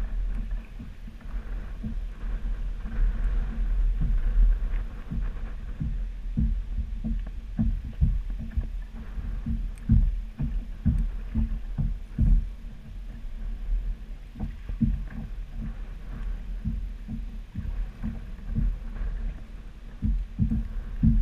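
Water slapping against a kayak hull, heard as a steady low rumble with many irregular low thumps.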